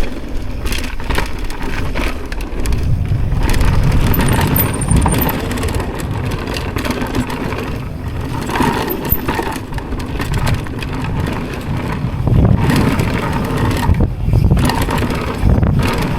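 Mountain bike descending a rough dirt trail at speed, its frame and chain rattling over bumps, with tyre noise and a steady rumble of wind on the microphone.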